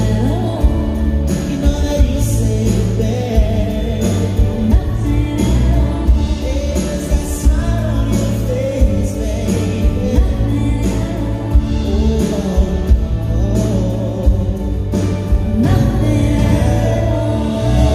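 Live concert music: a singer over a band, with steady bass notes and a regular drum beat.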